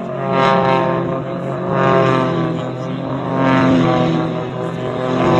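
An engine running steadily, a hum of many tones that swells and fades about every one and a half to two seconds.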